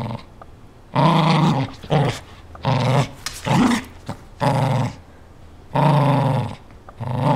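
Small dog growling in play while tugging on a toy, in repeated bouts of about half a second each.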